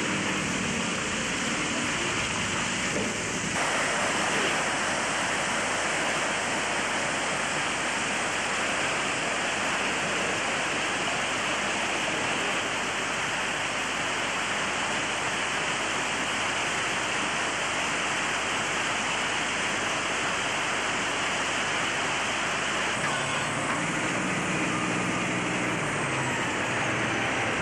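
Loud, steady rushing noise with no clear pitch, its tone shifting slightly about three and a half seconds in.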